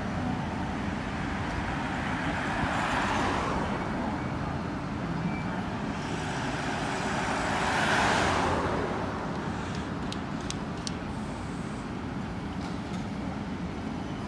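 Street traffic: two cars pass close by, the first about three seconds in and the second, a small SUV, about eight seconds in, each rising and fading over a steady traffic hum. A few faint high ticks follow near the end.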